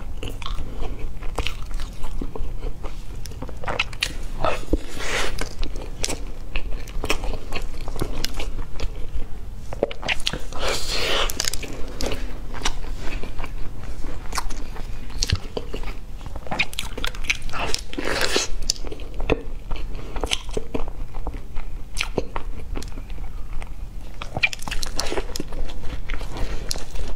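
Close-miked biting and chewing of an egg tart's crisp pastry shell: many small crunches and clicks of the mouth, with a few louder crunchy bites about five, eleven, eighteen and twenty-five seconds in.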